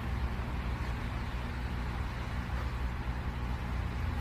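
A steady low hum of a running engine, with a hiss over it.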